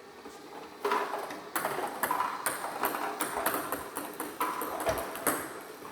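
Table tennis robot starting to feed balls: from about a second in, a quick series of sharp clicks, several a second, as plastic table tennis balls are shot out and bounce on the table.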